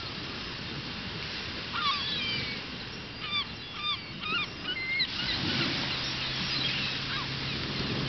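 A flock of gulls calling: a run of short cries that rise and fall, from about two seconds in to about five seconds, with fainter cries after, over a steady hiss. A low steady hum starts about six seconds in.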